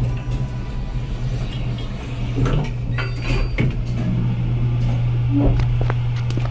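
Lift sound effects: a steady low hum with scattered clicks, and the lift doors sliding open about three seconds in.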